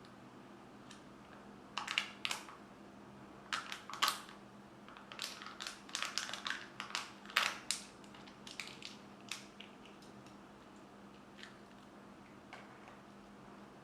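Crinkling and crackling of Kinder Joy plastic and foil packaging being handled and opened: a run of sharp crackles and snaps that starts about two seconds in and thins out to a few small clicks after about nine seconds.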